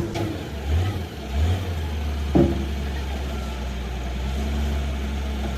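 An engine idling steadily, its pitch rising briefly twice near the start, with one sharp knock about halfway through.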